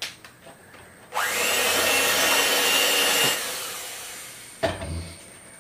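Electric hand mixer beating butter and powdered sugar: the motor starts a little after a second in, its whine rising to speed and then holding steady for about two seconds before it fades away. A short knock follows near the end.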